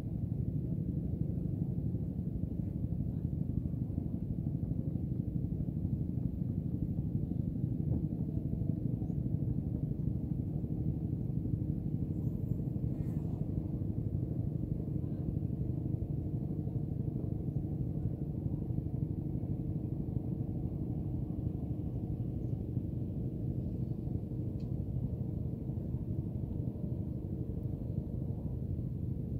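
A steady low rumble with a faint drone in it, unchanging in level.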